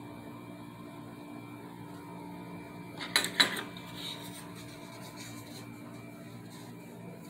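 Steady background hum with two sharp knocks a little after three seconds in, followed by a brief softer rubbing sound.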